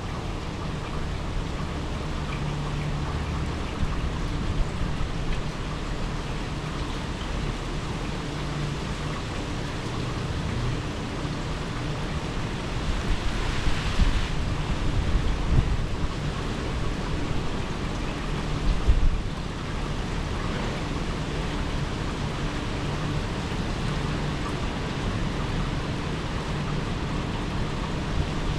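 Hurricane wind and rain making a steady rushing noise, with stronger gusts buffeting the microphone about halfway through.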